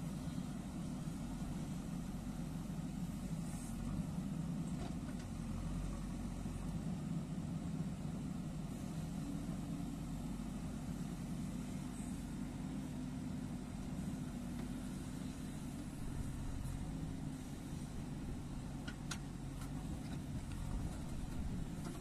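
JCB 3DX backhoe loader's diesel engine running steadily while its backhoe arm digs soil, with a couple of faint clicks near the end.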